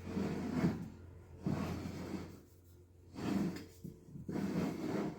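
Small wooden drawers of an iroko box sliding in and out, about four separate strokes of wood rubbing on wood.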